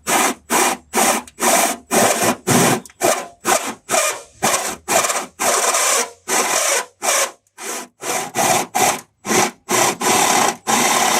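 Hand tool being worked back and forth in rapid rubbing, scraping strokes, about two a second, with a few longer strokes and short pauses past the middle.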